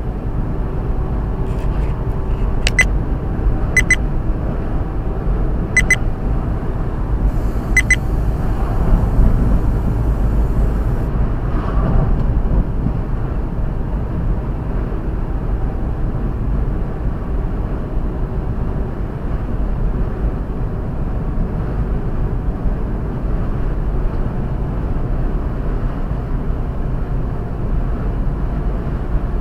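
Steady low drone of engine and road noise inside a moving truck's cab, with four short, sharp pips in the first eight seconds.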